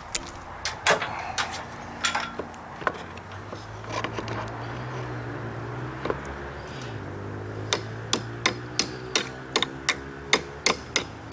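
Hammer tapping a pin into a Minn Kota GPS trolling motor's turning housing: a few scattered taps, then a steady run of light taps about three a second over the last few seconds. A low steady hum sounds underneath through the middle.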